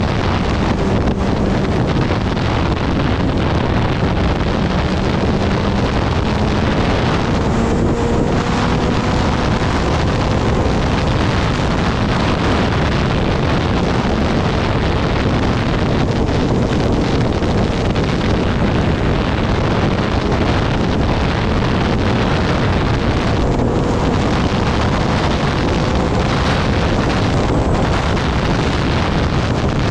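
Heavy wind rushing over the microphone of a Kawasaki Ninja ZX-10R at riding speed, with the bike's inline-four engine running underneath at a fairly steady pitch that drifts slowly up and down.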